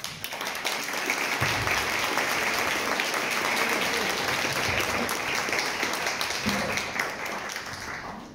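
Audience applauding: a dense, steady clapping that builds up over the first second, holds, and dies away near the end.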